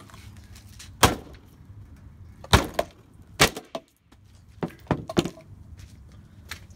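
Claw hammer striking a cinnamon spice container on a metal table: about seven sharp, unevenly spaced blows, the loudest about a second in and at about two and a half seconds.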